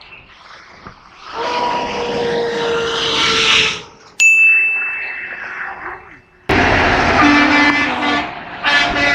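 Semi-truck horns sounding over passing road traffic, twice, with a bright single bell ding ringing out between them.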